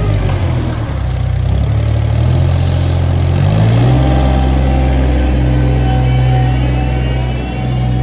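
Small articulated loader's engine running steadily, then revving up about three and a half seconds in and holding at the higher speed.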